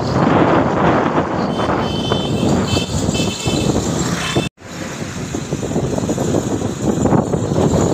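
A vehicle on the move, with steady engine and road noise and wind rushing past the microphone. The sound cuts out for an instant about four and a half seconds in, then resumes.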